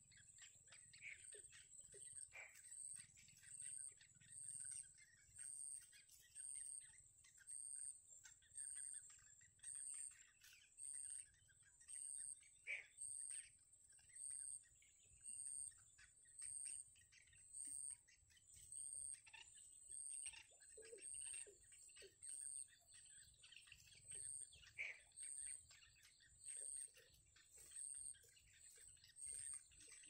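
Faint, very high-pitched chirps repeating in an even rhythm, a little slower than one a second, with scattered softer chirps in between: bittern chicks begging at the nest.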